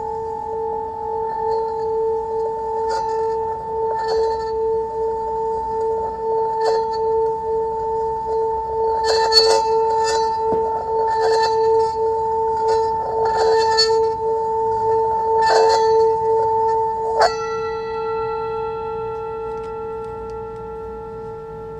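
Sustained ringing metal tone on two steady pitches, with short scraping strokes roughly once a second along the rim. About three quarters of the way through comes a single sharp metallic strike whose bright overtones ring on and slowly fade.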